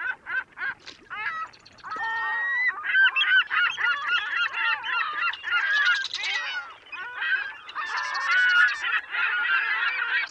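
A flock of birds calling: a few separate repeated calls at first, then from about two seconds in a dense chorus of many overlapping calls.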